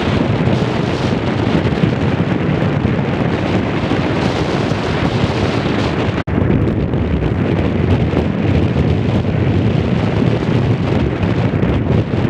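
Strong wind buffeting the microphone: a loud, steady rumbling rush. It cuts out for an instant about six seconds in.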